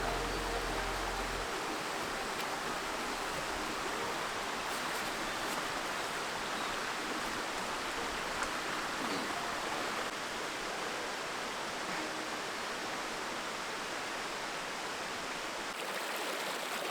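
Steady rush of a flowing stream. Low background music stops about a second and a half in.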